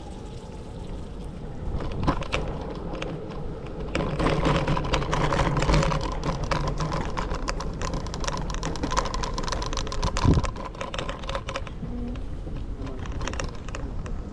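Scooter rolling along the tunnel floor: a dense, fast rattle of clicks from the wheels and frame over the uneven surface. A steady hum runs under it from about four seconds in, and a single heavier knock comes about ten seconds in.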